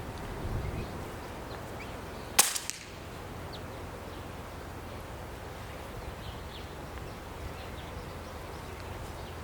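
A single shot from a silenced Daystate Alpha Wolf .22 PCP air rifle: one sharp crack about two and a half seconds in, with a few faint clicks right after.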